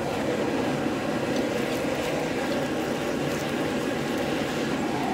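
Forge running: a steady, even rushing noise with no hammer blows.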